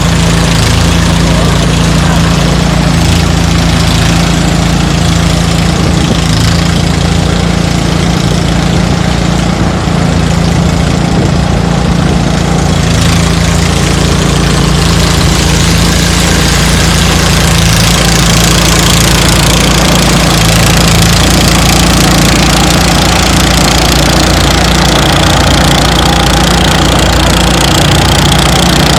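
Engine-driven rice threshing machine running steadily with a constant low hum, a hiss growing louder about halfway through.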